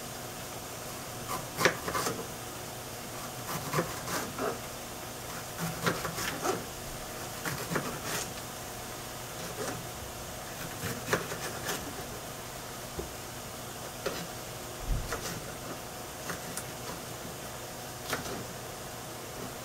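Kitchen knife slicing a green bell pepper on a plastic cutting board: irregular knocks of the blade on the board, one or two every second or so, over a steady background hum.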